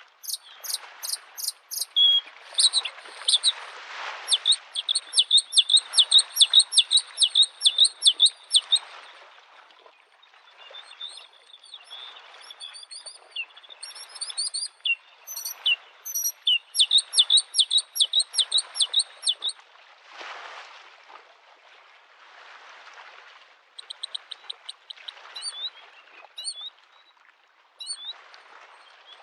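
Bluethroat singing: long phrases of rapid repeated ringing notes, with sparser single notes near the end. Small waves lap on the lake shore in soft swells beneath the song.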